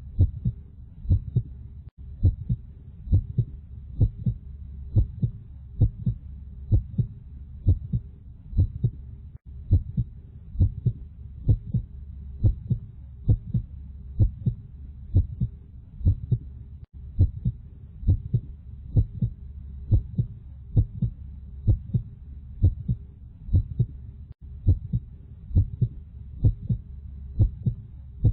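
Heartbeat sound: steady lub-dub double thumps, about one beat a second, over a low hum.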